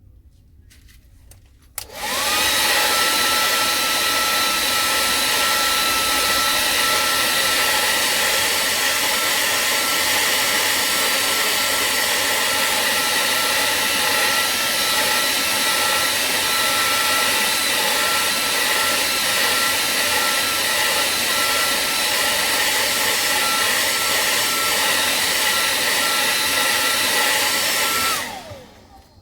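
A hot-air blower is switched on about two seconds in and runs steadily with a rushing blast and a steady motor whine. It is switched off near the end, the whine falling as the motor spins down. It is heating the phone's screen to soften the adhesive so the glass can be lifted off.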